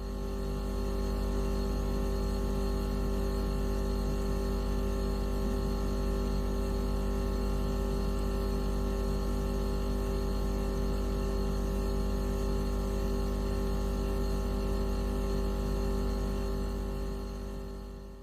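Electronic mosquito-repellent tone track: a steady, unchanging hum made of many stacked steady tones, with the lowest pitch strongest. It fades in over the first second and fades out near the end.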